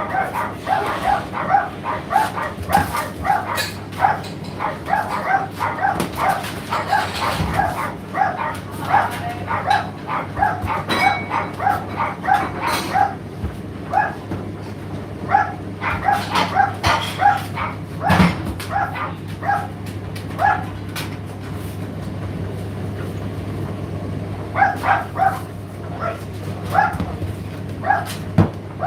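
A dog barking in quick runs of short barks, pausing for a few seconds now and then, over the steady low hum of an Indesit IDC8T3 condenser tumble dryer running mid-cycle.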